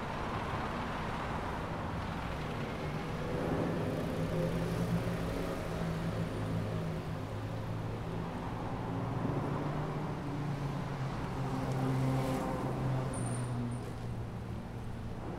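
Road traffic: vehicle engines running and cars passing, with a steady rumble that swells twice as vehicles go by.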